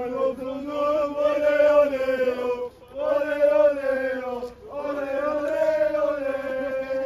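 Football supporters chanting in unison: three long, drawn-out sung phrases with short breaks between them.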